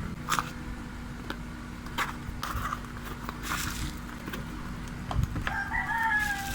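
A rooster crowing once in the background about five and a half seconds in, one long call that falls slightly in pitch. Before it come scattered clicks and rustles from small parts and packaging being handled.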